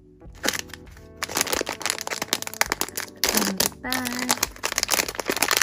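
Foil blind-box bag crinkling and tearing as it is ripped open by hand: a dense run of sharp, irregular crackles. Background music plays underneath.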